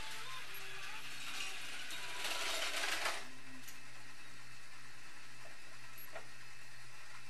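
Battery-powered Tomica toy train's small motor and plastic gears running steadily along the track, louder for about a second around two to three seconds in.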